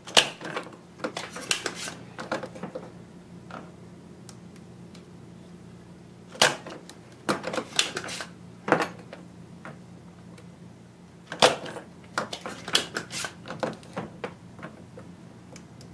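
Spring-loaded desoldering pump snapping as it is fired at the solder joints of a power MOSFET's legs, with clusters of lighter clicks and clatter from cocking the pump and handling the tools. There are three loud snaps, near the start, about six seconds in and about eleven seconds in, each followed by a run of smaller clicks.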